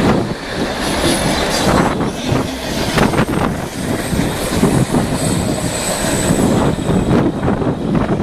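Canadian Pacific freight train's boxcars rolling past at speed: a steady rumble of steel wheels on rail, with clicks and knocks at uneven intervals.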